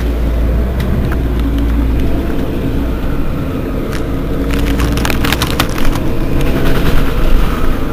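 Mercedes-Benz Citaro Facelift city bus running along, its engine giving a steady low drone. In the second half a run of sharp clicks and rattles sounds over it.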